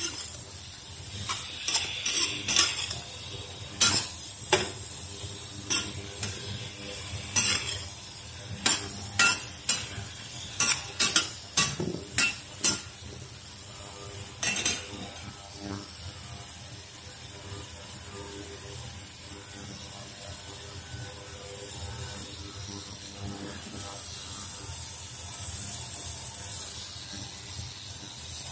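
Spatula stirring and scraping sliced celtuce and scrambled egg in a stainless steel wok, with many sharp clinks and knocks over the first fifteen seconds. After that comes a steady frying sizzle that grows louder near the end.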